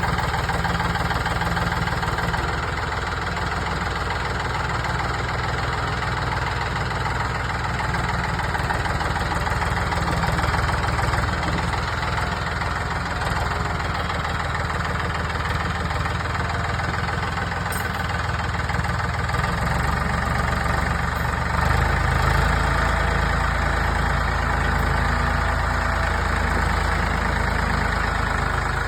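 Skid steer engine running steadily at idle, picking up slightly about two-thirds of the way through.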